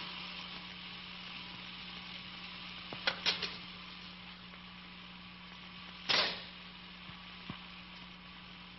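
Steady hiss with a low hum underneath, broken by a short cluster of sharp clicks about three seconds in and a single louder click about six seconds in.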